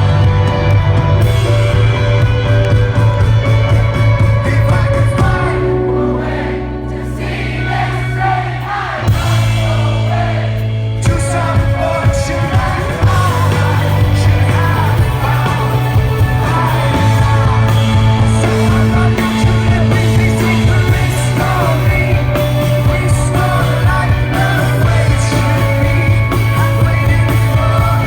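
A rock band playing live with a lead vocal, recorded from within the concert audience. There is a quieter stretch about six seconds in, and the full band comes back in a few seconds later.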